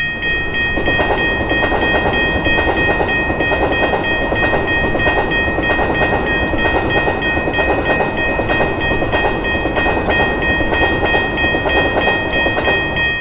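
A train passing a railway level crossing, a dense rumble with wheel clatter, while the crossing's warning bell keeps ringing steadily over it.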